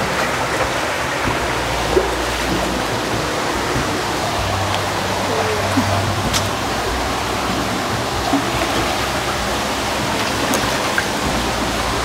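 Steady rushing of running water echoing in a cave passage: an even hiss that holds level throughout, with a couple of faint clicks.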